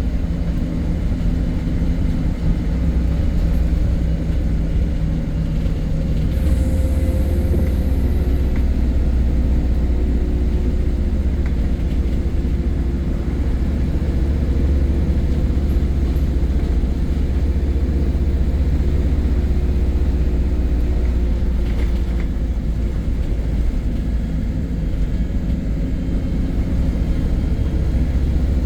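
MAN E300 single-deck bus running with a steady low diesel drone. About six seconds in the drone grows stronger and shifts in pitch, and a brief high hiss sounds at the same moment.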